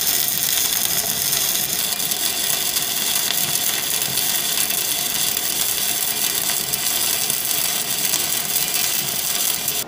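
Stick (arc) welding arc burning on steel plate, a steady dense crackle and sizzle from the electrode. It cuts off suddenly near the end as the arc is broken.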